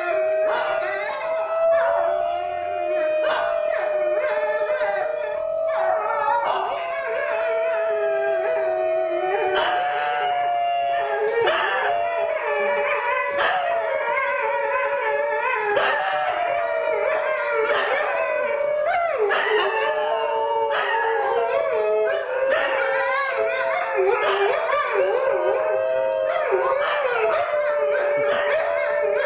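New Guinea singing dog howling in chorus with other dogs. Several overlapping, pitched howls: one holds a steady tone while the others waver and slide up and down.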